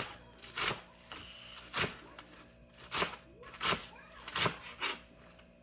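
Kitchen knife cutting vegetables on a cutting board: about seven sharp knocks of the blade on the board, unevenly spaced, roughly one every half second to a second.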